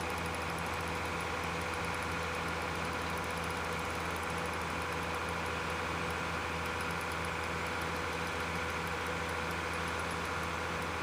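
A steady, unchanging hum made of several held tones over a light hiss.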